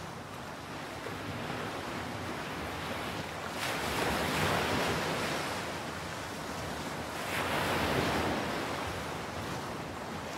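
Sea waves washing onto a sandy beach, swelling louder twice, about four seconds in and again near eight seconds.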